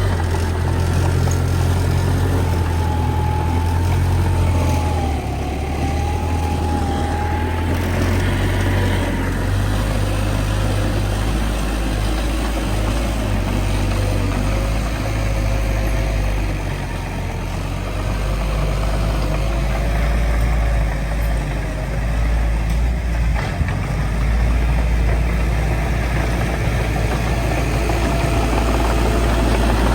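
Heavy diesel engine of earthmoving machinery, a bulldozer or dump truck, running with a steady deep rumble that eases off briefly twice. A faint wavering whine sits above it in the first half.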